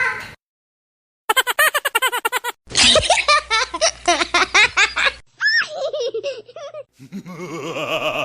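A string of separate laughter sound-effect clips, each a different voice laughing in quick rhythmic ha-ha bursts and cut off abruptly. After the end of one laugh and a second's gap, new laughs start about a second in, near three seconds, past halfway, and about seven seconds in.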